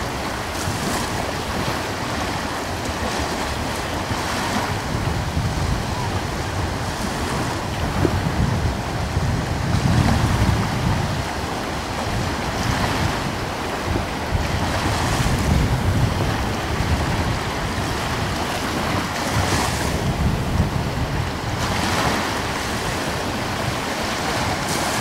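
Ocean surf: waves washing in and breaking every few seconds over a steady hiss of water and wind.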